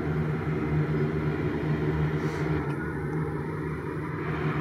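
Saab 2000's twin Allison AE 2100A turboprop engines turning six-blade propellers at low taxi power: a steady propeller drone with a strong low hum.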